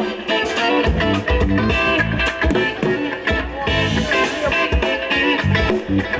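Band music with guitar and a steady drum beat.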